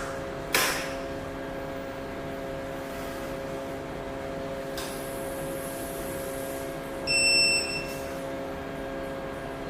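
Jewellery laser welding machine humming steadily from its power and cooling unit. A short sharp snap comes about half a second in, and an electronic beep sounds for under a second about seven seconds in.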